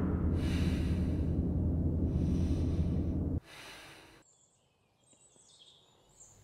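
Deep, steady rumble with breathing inside a spacesuit helmet, two breaths about two seconds apart. About three and a half seconds in, it cuts off abruptly to near silence with faint high chirping.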